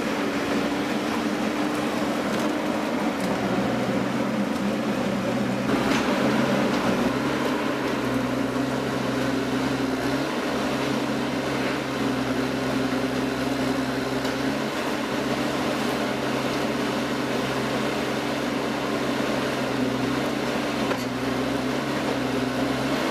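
A machine running steadily with a low hum and a higher drone that shift slightly in pitch a few times, with a short sharp crack about six seconds in.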